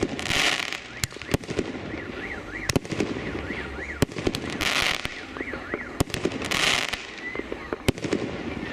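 A 36-shot, 1.2-inch consumer firework cake firing: sharp bangs of shells launching and bursting at uneven intervals. Three half-second bursts of dense crackling come about half a second in, near five seconds and near seven seconds.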